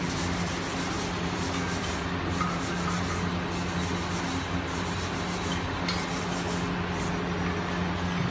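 Cast gypsum lamp shades being sanded by hand: scratchy rubbing strokes in runs with short pauses between them, over a steady low hum.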